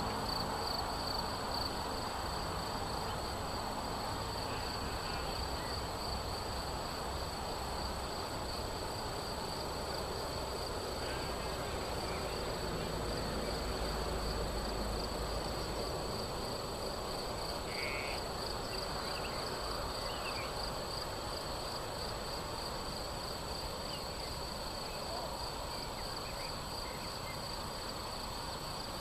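Insects chirring steadily in a meadow: a continuous high, pulsing buzz.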